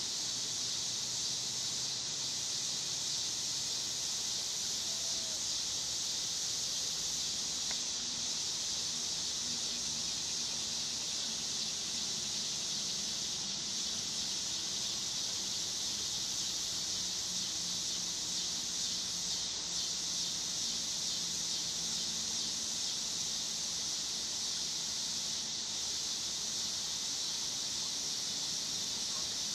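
Steady insect chorus: a high-pitched hiss that holds without change, with a faint low hum underneath.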